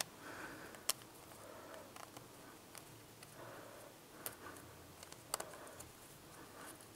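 Faint handling sounds of fingers pressing a seal into place around a metal wheel hub, with a few light, sharp clicks.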